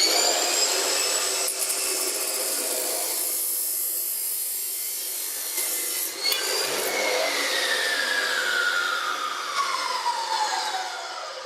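Chop saw spinning up and cutting through steel stock. About six seconds in the cut ends and the motor winds down with a long falling whine.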